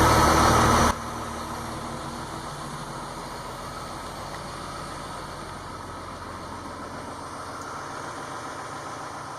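Crane's engine running steadily; its sound drops sharply about a second in and then carries on more quietly and evenly.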